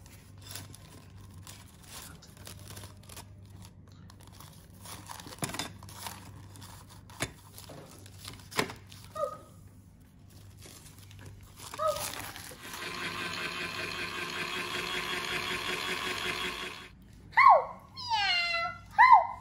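Light clicks and knocks of small plastic toys being handled. Then a steady buzzing sound for about four seconds, and two falling meows near the end, the loudest sounds here.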